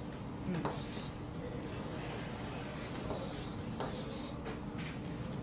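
Chalk drawing on a blackboard: a few short scraping strokes over a faint steady hum.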